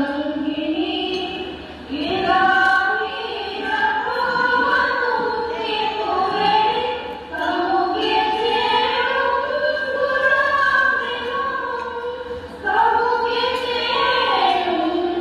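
A group of women singing a Dhivehi song together, in long held phrases with brief pauses between them.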